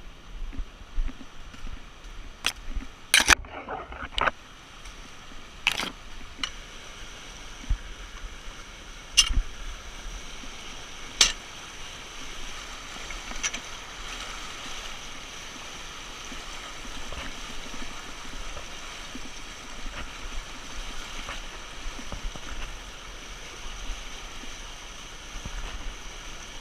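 River water rushing steadily, with several sharp knocks and clicks in the first ten seconds or so.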